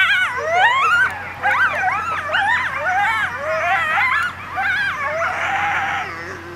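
Coyote howling in a quick run of quavering yips and short howls that swoop up and down in pitch, easing off a little near the end.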